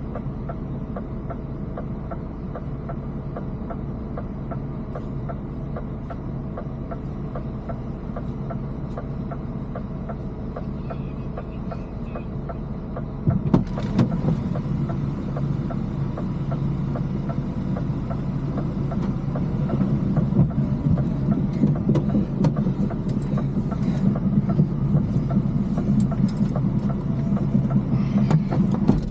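Heavy diesel engine running steadily. About halfway through it turns suddenly louder and rougher, as under load, with scattered clanks.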